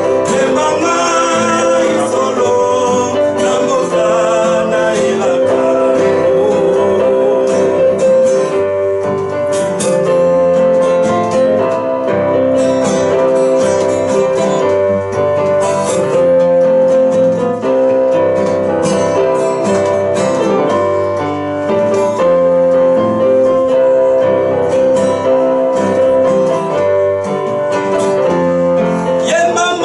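A man singing to his own strummed acoustic guitar in a gospel-style song.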